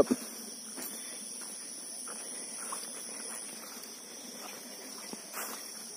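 Steady high-pitched chirring of insects in the paddy field, two constant shrill tones, with faint rustles and soft steps on the grassy path beneath it.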